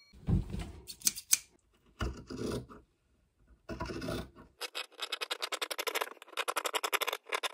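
Fabric scissors cutting black cotton fabric around a paper pattern in a fast, even run of crisp snips, starting about four and a half seconds in. Before that, cloth and paper are handled and rubbed on the table.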